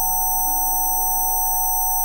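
Several steady pure tones held at fixed pitches, one in the high middle range and others very high, over soft background music whose low notes shift every half second or so.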